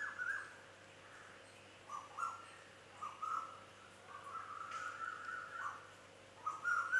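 Faint bird calls over a steady low hum: several short calls, with a longer one about four to five seconds in.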